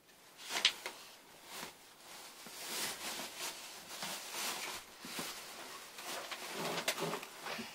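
Rustling and scuffing of fabric and cushions as a person squeezes into a narrow gap behind a futon, with a sharp click about half a second in.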